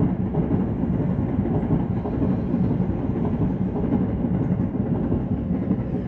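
Railway noise from trains running past on the tracks below: a steady rumble, heard through a window opened on both panes of its double glazing.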